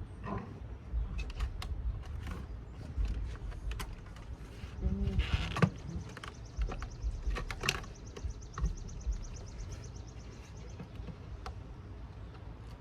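Scattered clicks and knocks of hands and tools working on car-audio power wiring, over a low rumble. A faint run of fine, rapid ticks comes in the middle, with a louder clatter about five seconds in.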